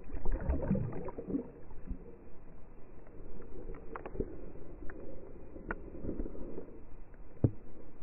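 Muffled underwater water noise heard through a camera's waterproof housing: a loud swirling churn in the first second and a half as a hand lets a smallmouth bass go, then steadier river current with a few sharp knocks.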